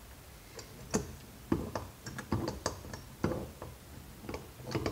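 Irregular clicks and light metal knocks from a vacuum-motor part being set and clamped into a vise.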